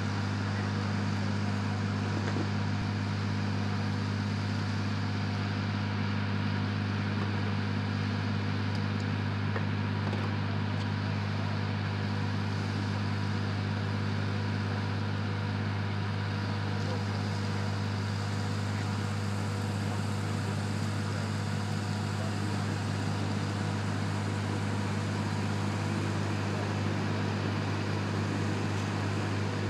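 Heavy machinery powering a crane-mounted rain rig runs with a steady low drone, under an even hiss of water spraying from the rig and falling as artificial rain.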